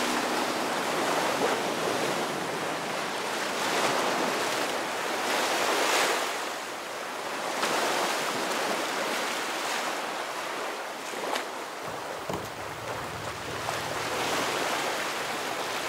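Wind and surf: a steady noisy rush that swells and eases every couple of seconds.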